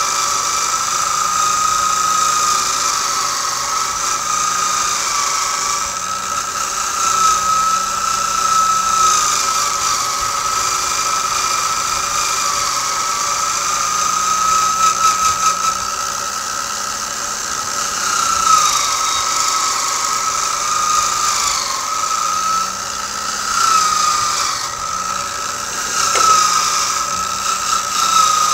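Motor-driven fine wire wheel spinning steadily while a steel rifle barrel is worked against it, a high whine that wavers and dips in pitch again and again over a scratchy hiss. This is carding: wheeling off the loosened, converted rust between rust-bluing passes.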